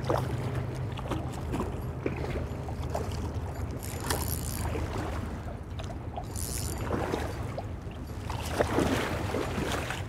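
Water splashing and sloshing as a hooked king salmon thrashes and is dragged through shallow river water onto a muddy bank, in short irregular bursts over a steady low hum.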